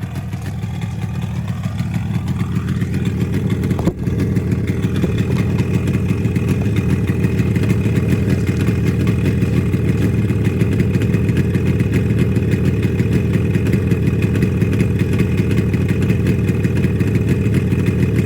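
Freshly tuned-up 1975 Yamaha RD350 two-stroke twin engine under way, rising in pitch as it accelerates over the first few seconds. There is a brief dip about four seconds in, and then the engine runs steadily and loudly.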